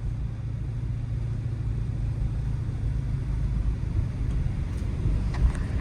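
Dodge Charger R/T's 5.7-litre Hemi V8 running steadily on the move, a low drone that gradually grows louder, heard through the open windows along with road noise.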